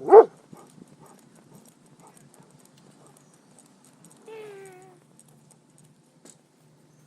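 A dog barks once, loudly, then goes quiet. About four seconds in there is a brief whine that falls slightly in pitch.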